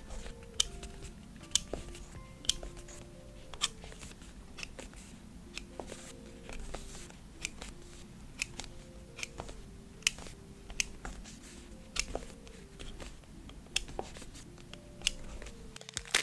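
Scattered light clicks and taps, about one a second, of a craft knife blade lifting kiss-cut paper stickers off their backing and pressing them onto a diary page, over soft background music.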